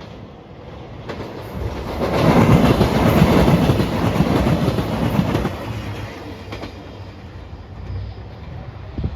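A JR Shikoku 2700 series diesel limited express passes close by, with wheels clacking over the rail joints. The sound swells, is loudest for about three seconds, then fades. A single sharp knock comes near the end.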